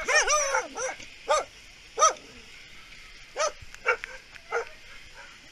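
Kennelled shelter dogs barking at the wire fence: a quick run of barks and yelps in the first second, then five single barks spaced about half a second to a second apart.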